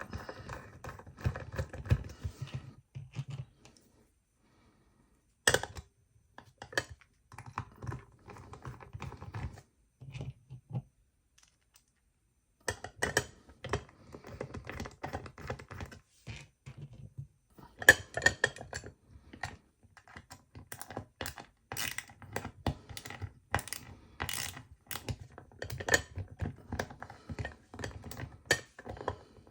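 Small irregular clicks, taps and rattles of a screwdriver and screws as the cover of a guitar effects pedal enclosure is fastened shut, stopping briefly twice along the way.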